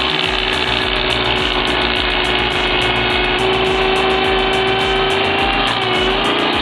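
A machine engine running with a steady drone whose pitch rises slightly partway through and dips briefly near the end, over background music with a bass beat.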